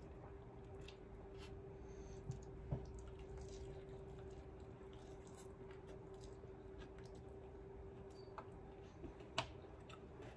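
Faint eating and food-handling sounds: a few soft clicks and taps as fried chicken and rice are picked apart by hand and eaten, over a steady low hum.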